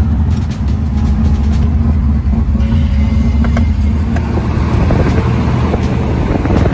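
Car engine running with road noise, heard from inside a moving car; the sound changes about two and a half seconds in.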